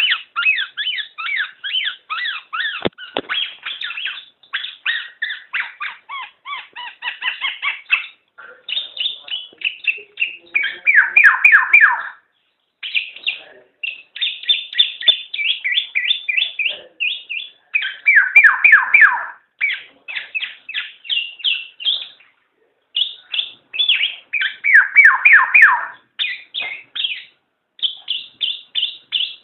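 Black-naped oriole song: continuous runs of quick, high chirping notes, broken by short pauses, with louder falling phrases about a third of the way in, near the middle and again later.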